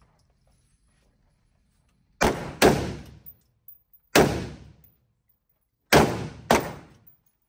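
Five rifle shots from a PSA JAKL AR-pattern rifle: a quick pair, a single shot, then another pair. Each shot has a short echoing tail off the walls of an indoor range.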